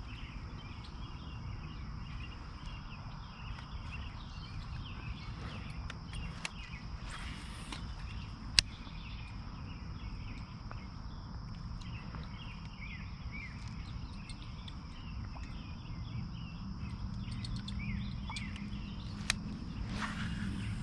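Summer-evening insect chorus: a steady high drone with chirping over it, above a low rumble, with a couple of sharp clicks.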